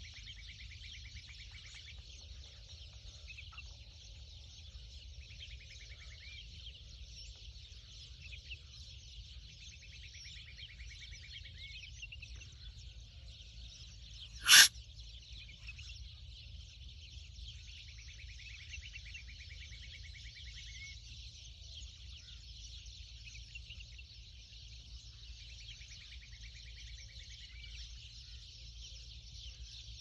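Dense chorus of small birds chirping and trilling, with repeated rapid trills coming and going, over a steady low hum. A single sharp click about halfway through stands out above it.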